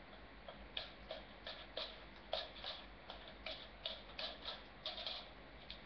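Light, irregular clicks and taps, a few a second, of a duck egg's shell being cracked and picked open, heard faintly through a computer speaker.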